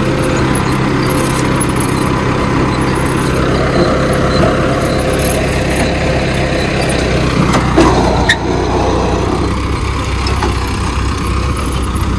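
Swaraj tractor's diesel engine running steadily while it pulls a seed drill sowing wheat, with a couple of short clunks about eight seconds in.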